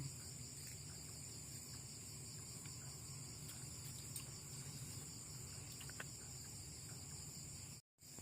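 Night insects chirping: a steady high drone with a fast, even pulsing trill just beneath it. The sound cuts out for a moment near the end.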